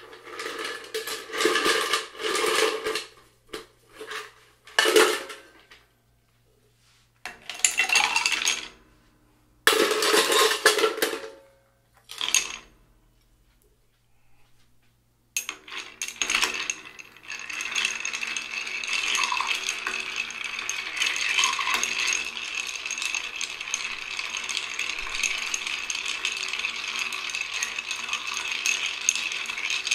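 Ice cubes clattering into a cut-glass mixing glass in several short bursts. After a pause, a bar spoon stirs the ice, a continuous clinking rattle that chills and dilutes the drink.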